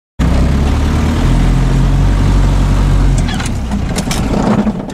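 Vehicle engine running as it drives along, heard from inside the cab, a steady low engine note with road and cab noise; the low note eases a little about three seconds in.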